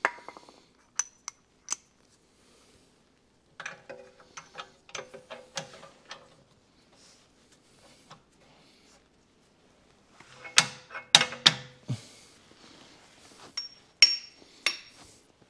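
Hand tools clinking and knocking against steel suspension parts while a new bushing is worked into a Mercedes rear suspension arm. The sharp metallic hits ring briefly, loudest in a cluster of several strikes about ten to twelve seconds in, with a few more near the end.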